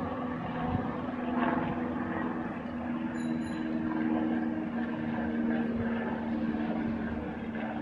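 Steady drone of a small boat's engine running at an even pitch as it motors slowly past. A brief high chirp sounds about three seconds in.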